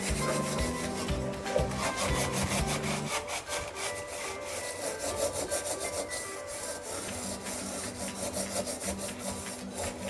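Scouring pad rubbing hard inside a steel saucepan in quick repeated strokes, scrubbing off dried tea stain.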